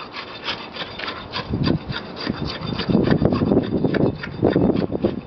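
Steel tamping rod plunging repeatedly into fresh concrete in a metal air-meter bowl, about four strokes a second, rodding the layer to consolidate it. The strokes grow louder and fuller about three seconds in.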